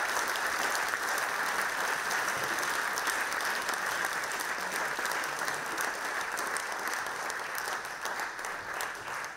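Audience in a lecture theatre applauding steadily after a talk, many hands clapping together.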